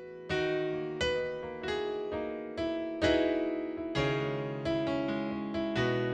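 Background music: an electric piano playing a slow melody over sustained chords, a new note struck about every half second.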